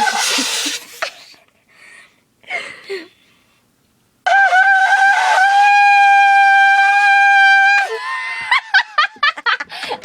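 Shofar (ram's horn) being blown: first a breathy, airy blast, then about four seconds in a clear, loud, long held note with a brief wobble. Short choppy sounds follow near the end.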